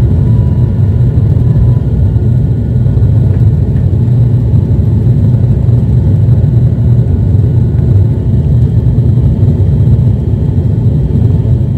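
Steady drone of a twin-turboprop airliner's engines and propellers at climb power, heard from inside the passenger cabin just after takeoff. It is a loud, even, low rumble.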